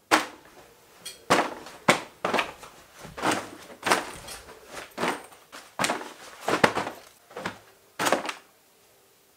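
Clothes being tossed into an open suitcase: a run of soft thuds and rustles, one about every half second, stopping about eight seconds in.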